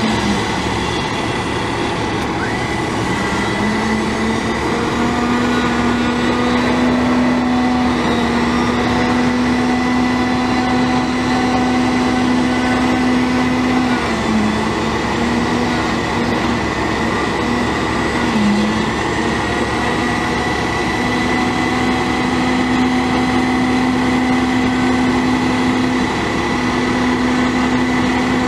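Truck's International DT466 inline-six turbo diesel running at a steady speed, with a high thin whine above the hum. Its note sags briefly about four times, as though the engine takes on a short load.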